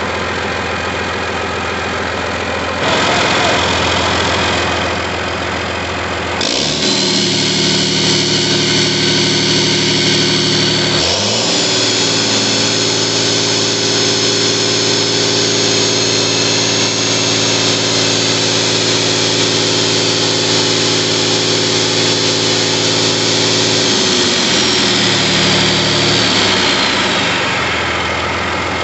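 John Deere 9.0 L PowerTech Tier III six-cylinder diesel engine idling, then revved up in two steps, about six and eleven seconds in, and held at high speed with a high whine before being throttled back down to idle near the end.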